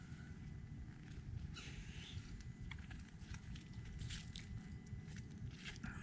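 Footsteps and rustling in dry leaf litter on a dirt trail, scattered soft crunches over a low wind rumble on the microphone.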